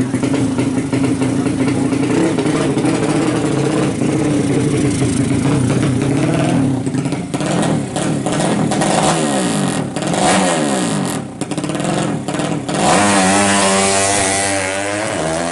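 200cc bore-up racing motorcycle engine running loud at high revs. From about seven seconds in its pitch rises and falls repeatedly, then it holds high and steady near the end.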